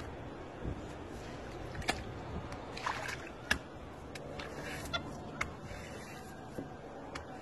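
Wet cloth being scrubbed with a brush and sloshed in a soapy concrete washtub, with a few sharp clicks and knocks scattered through it.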